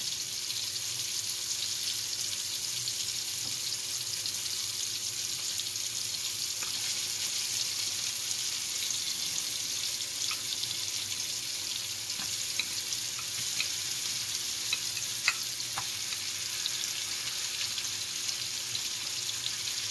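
Chicken pieces frying in a pan with sautéed onions, tomatoes and garlic: a steady sizzle. A few light clicks come in the middle stretch as a wooden spatula stirs in the pan.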